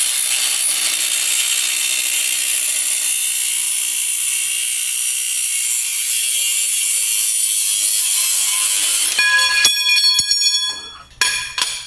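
A cordless angle grinder with a cut-off wheel cuts through steel conduit with a steady, harsh grinding hiss. About nine seconds in, the wheel comes free of the cut and the grinder runs with a clear high whine for a second or so, then stops.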